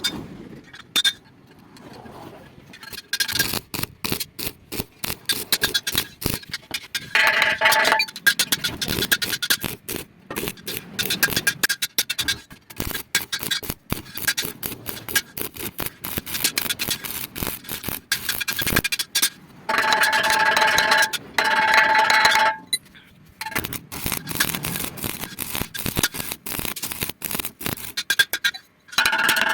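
Electric arc welding on iron: an irregular crackling and sputtering of the arc in runs broken by short stops, with a steady buzz joining in during a few stretches.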